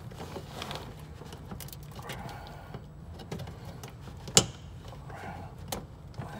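A 5202 HID fog light bulb being pushed into its plastic fog light housing: handling rustle and small clicks, then one sharp click a little over four seconds in as the bulb's locking tabs latch into place.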